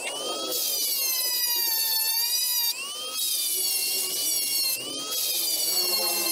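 Flexible-shaft rotary tool grinding a slot into the metal housing of a 4x4 auto-locking hub at the retaining-ring groove. Its high whine wavers and sags in pitch as the bit cuts, and it dips briefly twice.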